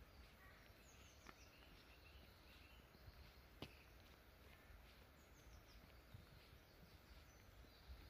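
Near silence, with faint bird calls: short high chirps in quick descending runs, twice. A few soft ticks over a faint low rumble, the sharpest tick about halfway through.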